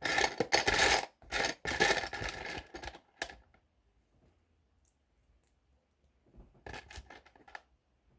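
Small plastic Lego pieces clattering and clicking as they are rummaged through, a dense rattle for about three seconds, then a shorter second rattle near the end.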